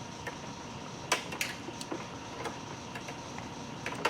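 Scattered light clicks and taps, about eight irregular sharp ticks, from hand tools and a steel brake line being handled at a flaring tool.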